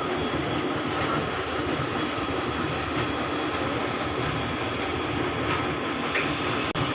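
Motor of a small country boat running steadily under way, a continuous engine drone mixed with water noise.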